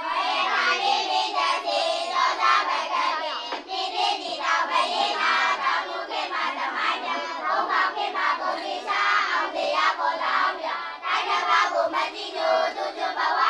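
A class of children's voices chanting together in a sing-song unison, the way a lesson is recited aloud in chorus. It begins abruptly and keeps an even, rhythmic pulse.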